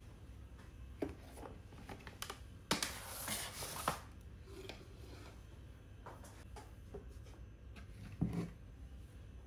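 Household objects being handled on a wooden countertop: a few light knocks, a scraping rustle lasting about a second around three seconds in, and a dull knock near the end as a ceramic vase is picked up.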